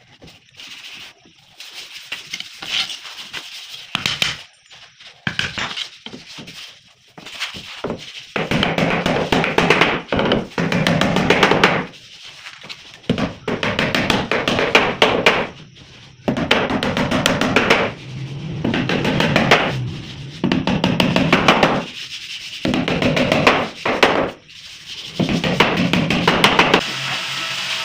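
Wood being worked by a tool in repeated strokes, each lasting one to two seconds with short pauses between. The strokes are quieter and choppier at first and grow steadier and louder from about eight seconds in.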